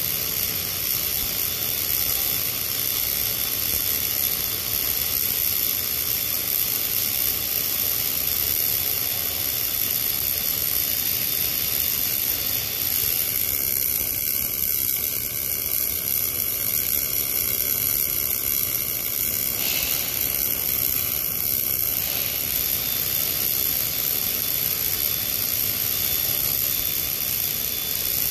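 Steady hissing buzz of a wire-fed MIG weld on a 36-inch 316L stainless steel pipe, run with the RMD short-circuit process, continuous without a break.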